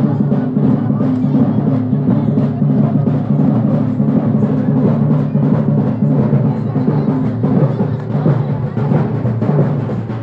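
Loud music with drumming over sustained low tones, continuing without a break.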